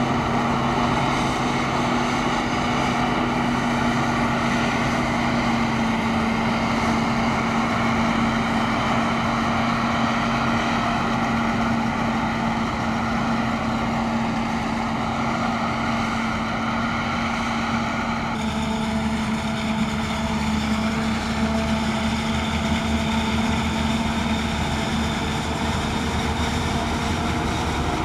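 Claas Jaguar forage harvester running steadily at working load while chopping maize, a continuous machine drone with a steady hum. About 18 seconds in the sound changes abruptly to a closer mix of the harvester and a tractor engine pulling the forage trailer alongside.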